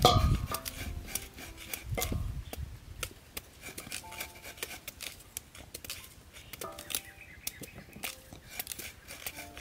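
Knife slicing through a raw peeled pumpkin held in the hand, a run of short crisp cuts at irregular intervals as pieces drop into the tray.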